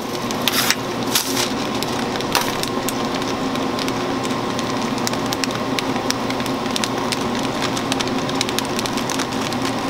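Chocolate enrobing machine and its conveyor running: a steady mechanical hum with a dense, irregular crackle of small clicks, a few sharper clicks in the first couple of seconds.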